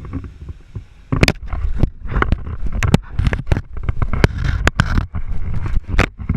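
Low rumble with many irregular sharp knocks and bumps, like wind or handling noise on the microphone.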